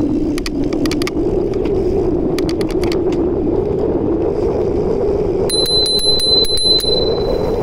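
Bicycle rolling downhill with a steady rush of wind and tyre noise on the microphone. Two short runs of light clicks come early on. About five and a half seconds in, the bicycle bell is rung in a rapid string of strikes, and its high ring hangs on briefly.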